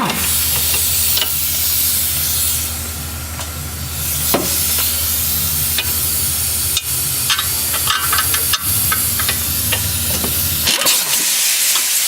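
Pneumatic air tool hissing over a steady low hum while the strut-to-knuckle bolts are loosened, with scattered metallic clicks; the hum stops abruptly near the end.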